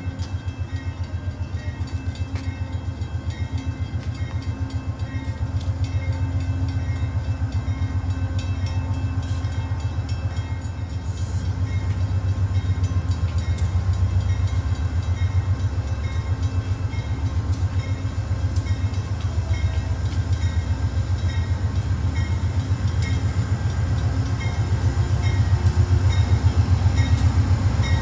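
Amtrak GE P42DC Genesis diesel locomotive approaching slowly with a steady low engine rumble that grows louder near the end as it draws close.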